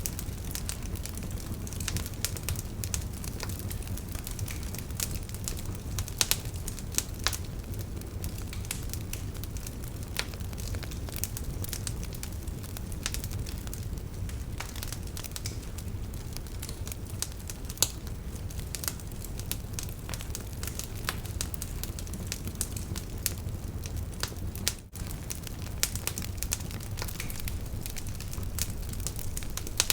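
Campfire burning: dense, irregular crackles and sharp pops over a steady low rush of flames. The sound drops out for an instant about 25 seconds in.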